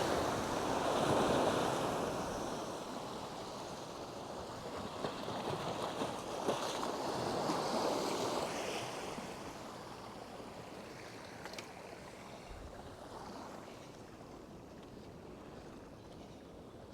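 Waves washing in, with wind on the microphone; the wash is loudest at the start and dies away toward the end, with a few faint clicks.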